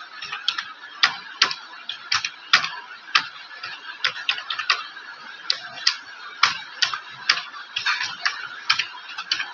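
Typing on a computer keyboard: an irregular run of key clicks, about three a second, over a steady background hiss.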